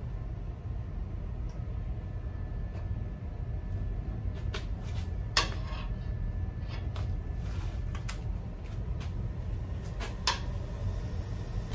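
Wood lathe running with a low, steady hum, with scattered light metal clicks and one louder ringing clank about five seconds in, as the tool rest or tools are handled.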